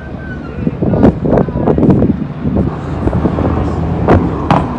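Diesel semi-truck engine running as the truck approaches along the road: a steady low rumble that firms up in the second half, with wind knocking on the microphone several times.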